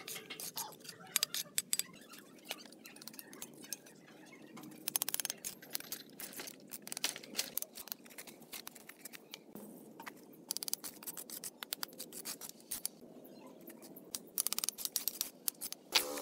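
Bricklayer's steel trowel scraping wet mortar and tapping bricks down into their bed: irregular sharp clicks and scrapes, with quick runs of taps about five seconds in and again near the end.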